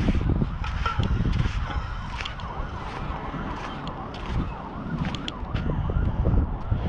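Wind buffeting the microphone, with scattered light clicks. A faint siren-like tone warbles up and down through the middle.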